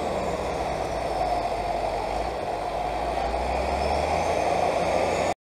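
Large tractor engine running steadily with a low drone while the tractor drives over a silage pile towing a multi-wheel silage packer. The sound cuts off abruptly near the end.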